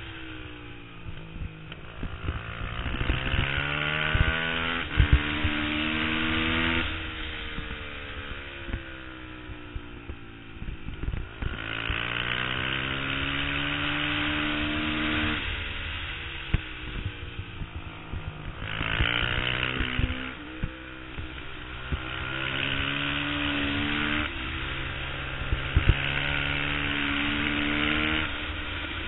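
Twin-cylinder race motorcycle engine heard from onboard, revving up through the gears with a sharp drop in pitch at each shift and falling away under braking for corners, several times over. Wind rushes over the microphone on the fastest stretches.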